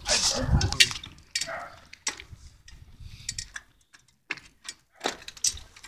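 A bicycle being handled, making scattered light ticks and clicks of its mechanism at irregular intervals, with a brief rustle in the first second.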